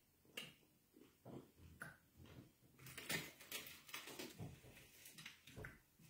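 Faint eating sounds: soft, scattered clicks and crackles of chewing and of fingers picking at fried fish on a plate, busiest about three seconds in.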